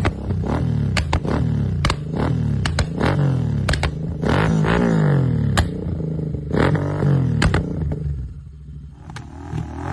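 Royal Enfield 650 parallel-twin engine revved in repeated quick blips, each rev falling away with sharp exhaust pops and crackles on the overrun, the pops and burbles of a custom remap. About 8 s in it drops back toward idle, then revs again near the end.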